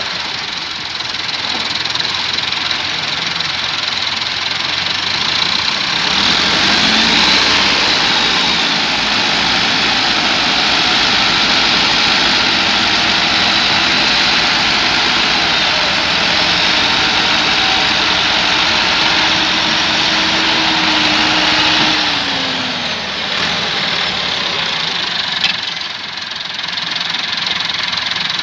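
Massey Ferguson tractor diesel engines working under heavy load while pulling a loaded trolley stuck in sand. They rev up about six seconds in, hold high revs for about fifteen seconds, then fall back to a lower, steadier run near the end.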